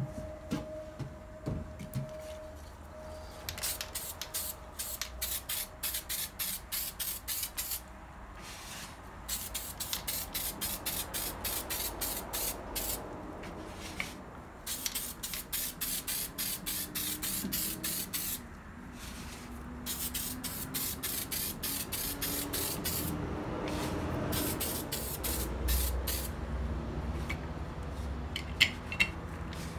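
Aerosol spray-paint can sprayed in quick short hissing bursts, about three a second, in runs of a few seconds with brief pauses between. A couple of sharp clicks near the end.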